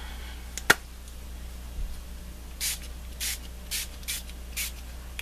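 Five quick pumps of a Tattered Angels mist spray bottle, each a short hiss, about half a second apart. Before them, near the start, comes a single sharp click.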